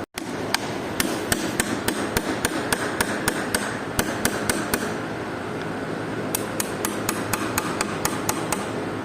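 Rapid hammer blows, about three a second, in two runs with a short pause between them, over a steady machine hum; part of working the seized water pump off the concrete pump.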